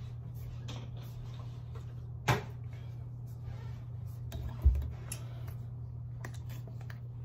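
Things being handled on a kitchen counter: scattered small clicks and two knocks, one about two seconds in and a heavier thump a little past the middle, then a plastic water bottle's cap being twisted open near the end. A steady low hum runs underneath.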